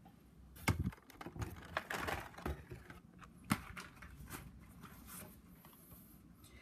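Carded Hot Wheels cars being handled: cardboard backing cards and plastic blisters rustling, with scattered light clicks and taps, the sharpest about a second in and again near the middle.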